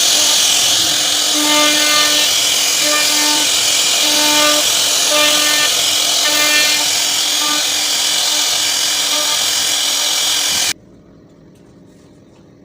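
CNC wood router cutting a round wooden post: a loud, steady hiss of the spindle and bit in the wood, with a humming tone that comes and goes in short stretches as the machine moves. The sound cuts off suddenly near the end, leaving a quiet background.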